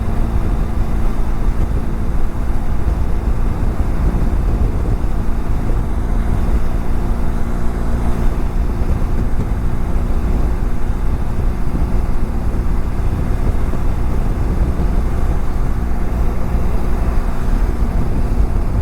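Motorcycle riding at road speed: wind rushing over the camera microphone as a steady low rumble, with the BMW F700GS's parallel-twin engine humming steadily underneath. The engine tone is clearer in the first half.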